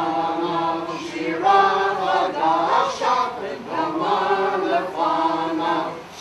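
A group of voices singing together in a sing-along, a song in Hebrew, in phrases with brief breaks between them.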